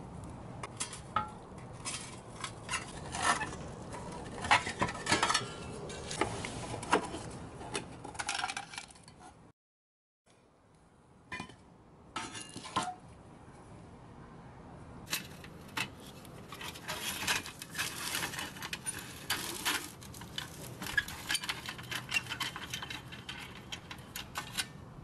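Pressed-steel parts of a 1960s Tonka toy truck clinking and scraping against a small metal prying tool and each other as they are taken apart: an irregular run of light metallic clicks and taps. A short break of silence comes a little before halfway, then the clinking resumes.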